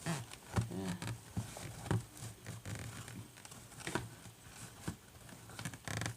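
Cardboard and plastic packaging being handled: scattered light clicks, taps and rustles.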